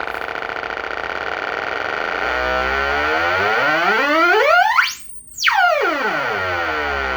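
Electronic siren tone from speaker 2 of a G10S-50 sounding during a tone test: a steady, buzzy electronic tone. About two seconds in it begins to sweep, rising to a peak with a brief dip in level around the middle, then sweeping back down.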